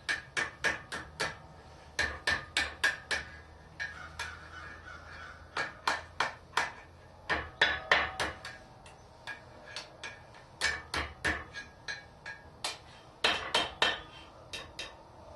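Hammer blows on a red-hot 3/8-inch mild steel rod over the horn of an anvil, bending the curve of a wall hook. Fast runs of sharp strikes, several a second, broken by short pauses.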